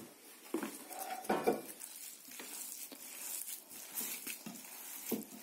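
Minced beef and pork being mixed by gloved hand in an enamel bowl: soft, irregular squelches and light knocks, with a frying pan clattering in the first second or two.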